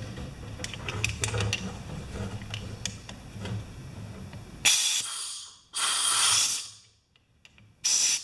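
Small handling clicks over a low hum, then, from just past halfway, three short bursts of hissing air as air is blown through the pressure washer's unloader valve to test whether it seals or leaks.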